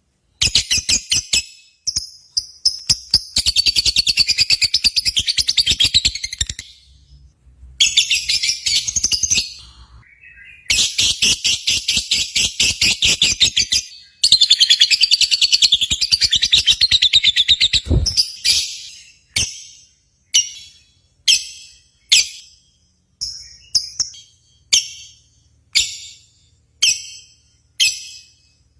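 Lovebirds singing: long, very rapid high-pitched chattering trills in several stretches broken by short pauses, turning after about eighteen seconds into separate sharp chirps repeated about one and a half times a second.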